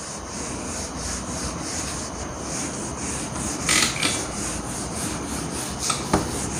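Handheld whiteboard eraser rubbing marker off a whiteboard in repeated back-and-forth wiping strokes, a few of them louder about four seconds in.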